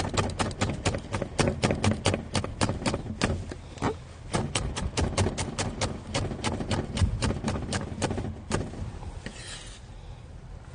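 Chef's knife chopping Cheongyang green chili peppers on a wooden cutting board, quick knife-on-wood knocks about five a second. The chopping stops a little before the end, followed by a brief scrape as the cut pieces are swept together on the board.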